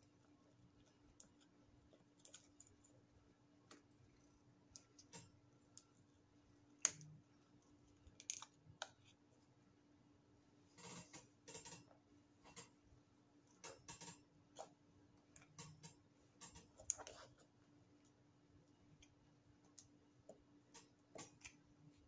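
Faint, scattered clicks and scrapes of a small plastic pry tool picking crusted alkaline-battery leak deposits off the contacts in a plastic AA battery compartment, with the batteries and case knocking lightly. The clicks come singly and in short clusters over a faint steady hum.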